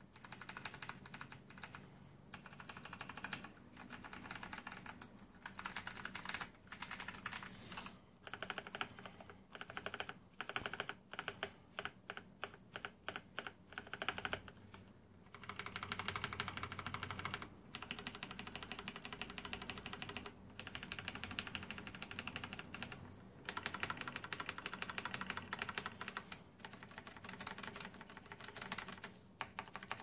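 Typing on a Razer BlackWidow mechanical keyboard with Kailh orange switches: fast runs of key clicks in bursts with short pauses, and a stretch of separate, evenly spaced keystrokes around the middle.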